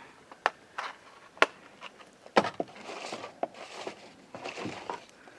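Scattered sharp clicks and light knocks, about eight in all and unevenly spaced, the loudest about one and a half and two and a half seconds in, over soft rustling.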